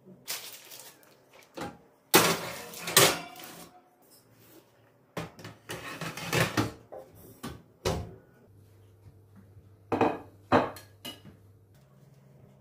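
Dishes and kitchenware being handled: irregular clusters of clinks, knocks and clatter, loudest about two seconds in and again near ten seconds.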